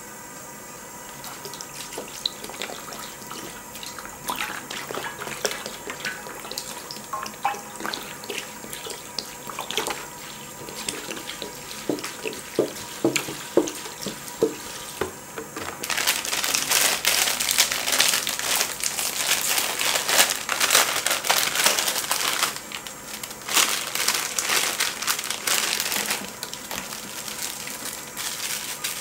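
Water poured from a plastic bottle onto a cast-iron pot-lid griddle heaped with bean sprouts, splashing on the metal. About halfway through a loud, steady hiss sets in and runs on, with a short dip partway.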